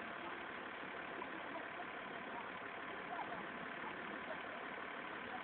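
Steady background traffic noise, a continuous even hiss and hum with a few faint short chirps.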